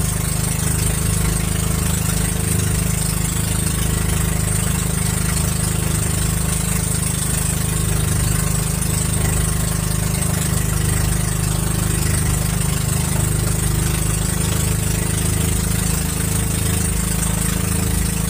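Engine of a motorized outrigger fishing boat (bangka) running steadily as the boat cruises out to sea, a constant low drone.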